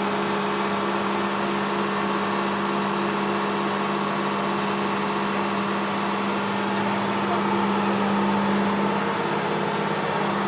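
Large engine running steadily at constant speed, a continuous drone with a strong low hum.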